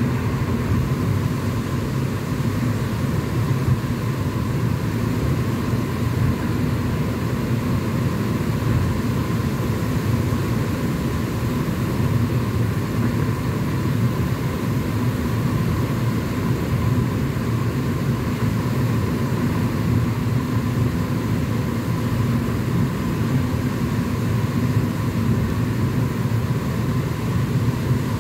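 Steady road noise of a car driving through a road tunnel, heard from inside the cabin: a constant low drone of tyres and engine.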